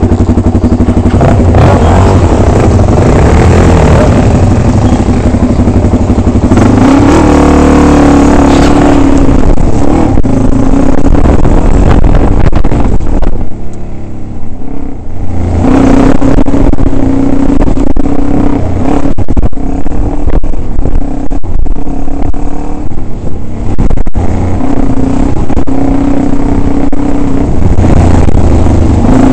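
Dirt bike engine revving up and easing off as the bike rides a rough, rutted dirt track, heard from on the bike. The engine backs off briefly about halfway through, with knocks and rattles from the bumps.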